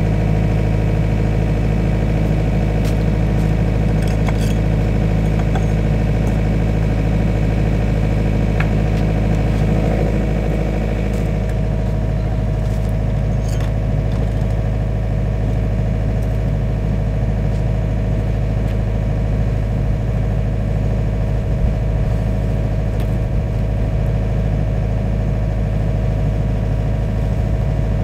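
Diesel engine of a Takeuchi TL130 compact track loader idling steadily, with a few light knocks in the first half.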